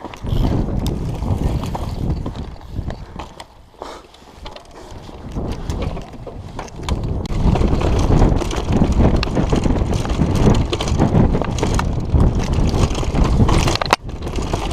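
Loud, gusting wind buffeting the microphone, a low rumbling noise that eases for a while and then builds again, with a brief dropout near the end.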